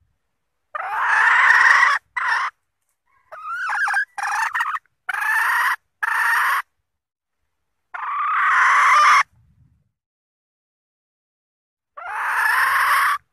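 Junglefowl hen giving her 'ngekek' mating-solicitation call, the hen's signal that she is ready to mate. It comes as a series of loud, harsh calls of about a second each, some clipped short, each cut off sharply with silence between them.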